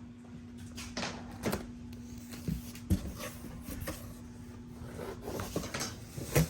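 Scattered knocks, clicks and rubbing from objects being handled, with two sharper thumps, one about halfway through and one near the end, over a steady low hum.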